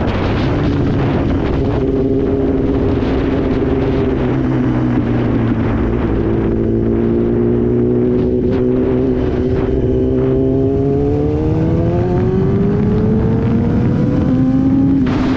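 Kawasaki ZX-10R's inline-four engine heard from the rider's seat, running steadily at cruising speed with wind noise, then rising in pitch under acceleration through the second half.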